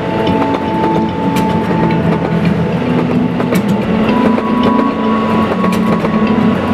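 Level-crossing warning bell ringing in a repeating two-note pattern as the JR West Series 87 Twilight Express Mizukaze diesel train passes, its wheels giving scattered sharp clicks over the rail joints.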